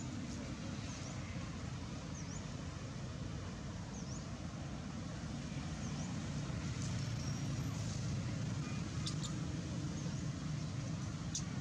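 Outdoor background noise: a steady low rumble, with faint short high chirps scattered through it and a couple of soft clicks near the end.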